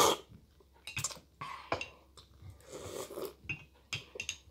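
A slurp from a spoonful of hot chocolate, then a metal spoon clinking against the cup several times as it is dipped and stirred.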